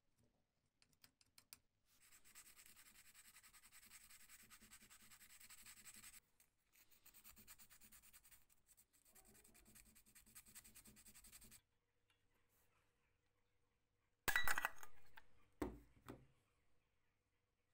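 Abrasive paper rubbing steadily back and forth over a small brass part, with a short pause partway through. Near the end come two sharp, loud clinks and knocks of metal parts being handled.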